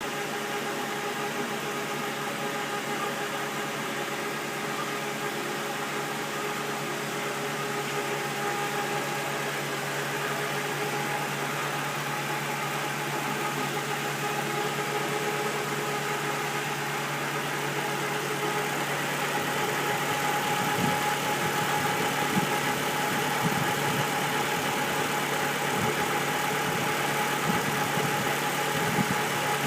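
2013 Scion tC's 2.5-litre four-cylinder engine running at idle with a steady drone, a noise the owner blames on the manual transmission. From about twenty seconds in, a few short low knocks come through.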